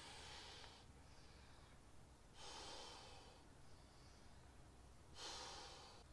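A person breathing faintly, with three stronger breaths about two and a half seconds apart and softer ones between.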